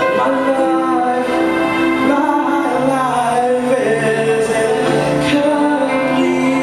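A man singing into a microphone over instrumental accompaniment, amplified through a sound system.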